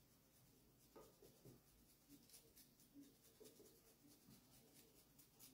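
Faint, repeated scraping strokes of a block of cheese rubbed over a handheld metal rasp grater.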